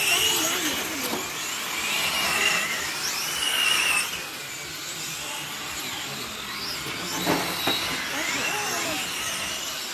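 Electric 4S radio-control GT cars racing, their motors whining, the pitch rising and falling as they speed up and slow down through the corners. A single sharp knock about seven seconds in.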